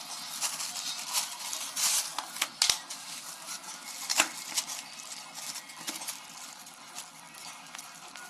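Dumbbell set parts and packaging being handled: irregular rustling with many sharp clicks and knocks, two of them louder, at about two and a half and four seconds in.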